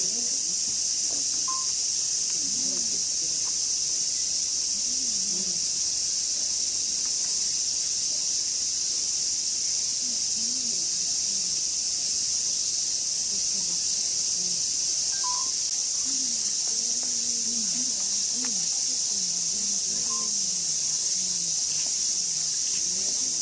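A steady, high-pitched drone of summer cicadas, with faint distant voices murmuring underneath.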